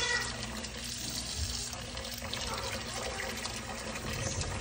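Kitchen faucet running steadily into a sink, the stream splashing over a spider monkey's hands as they are washed under it.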